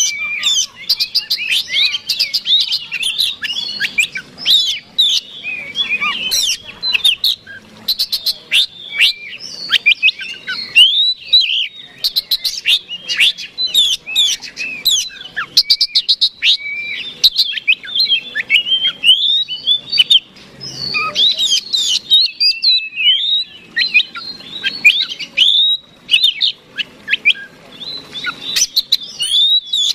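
Oriental magpie-robin (kacer) singing a fast, varied song of sweeping whistles and runs of sharp rattling clicks, going on with only a few short pauses. It is the persistent, aggressive fighting song that keepers use to provoke rival kacer.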